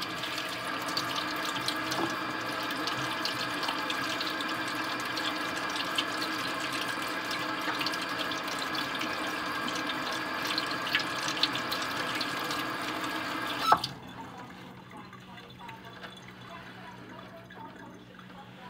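Kitchen tap running steadily into a sink, turned off with a click about 14 seconds in.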